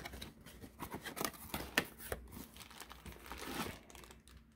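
Cardboard figure box being handled: flaps opening and the inner packaging sliding out, with irregular rustling and scraping of card and a few sharper clicks around two seconds in.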